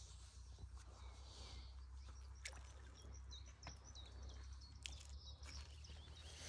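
Near silence: a low steady rumble, with a bird faintly chirping a run of short notes about halfway through and a few light clicks.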